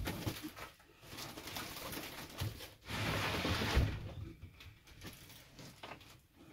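A large stretched canvas on a wooden frame being pulled out of a crowded storage rack: scraping and rustling with a few knocks, loudest for about a second near the middle.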